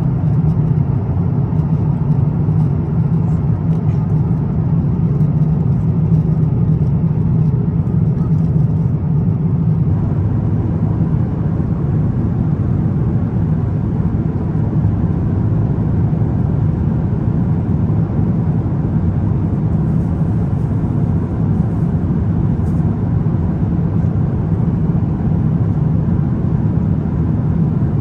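Steady low rumble and roar inside an Airbus A350-900 passenger cabin: engine and airflow noise from its Rolls-Royce Trent XWB engines, unchanging throughout.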